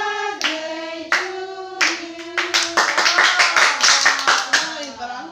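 A group of voices singing together in long held notes, joined about two seconds in by rhythmic hand-clapping that grows steadily denser.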